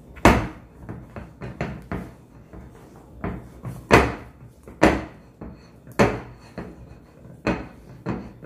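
Soft bread dough being kneaded by hand in a glass mixing bowl: a dozen or so irregular thuds and knocks of hand and dough against the bowl, the loudest about four seconds in.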